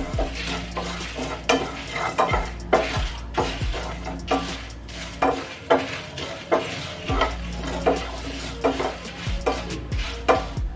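Wooden spatula stirring and scraping coriander seeds, cumin and dried red chillies around a non-stick pan as they roast, the seeds rattling against the pan with each stroke, about two strokes a second.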